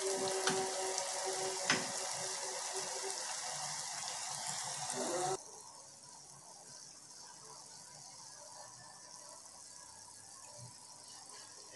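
Eggs frying in a pan of chopped bell peppers: a steady sizzle with a few sharp crackles. About five seconds in it cuts off abruptly to a much fainter sizzle.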